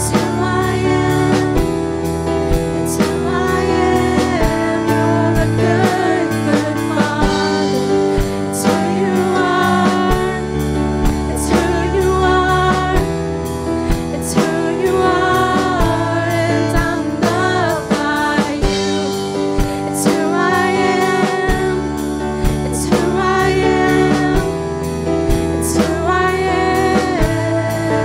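Live worship song: women singing a melody together, backed by keyboard and a drum kit keeping a steady beat.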